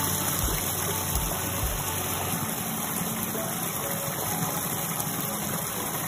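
Small rocky stream running over stones: a steady rush of flowing water.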